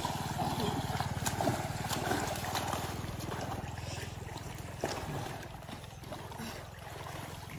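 Swimmers splashing and paddling in the water of an open stone well, with a steady low rumble underneath. A few short splashes stand out, one near the start and one a little under five seconds in.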